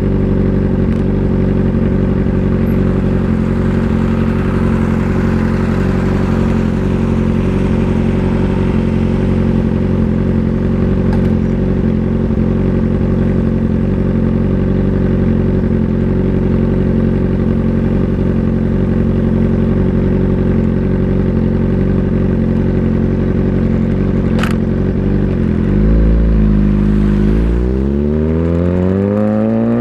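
Motorcycle engine running at a steady pace for most of the time; a little before the end the pitch dips and then climbs steadily as the engine accelerates.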